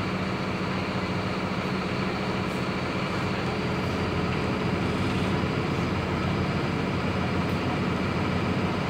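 Mercedes-Benz OF-1721L BlueTec 5 bus's diesel engine, a turbocharged inline six, running with a steady drone.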